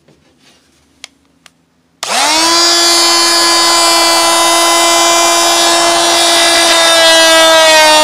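Porter-Cable oscillating multi-tool starting about two seconds in with a quickly rising whine, then running as a noisy, steady high buzz while its blade plunge-cuts into a plywood wall panel; the pitch drops slightly near the end.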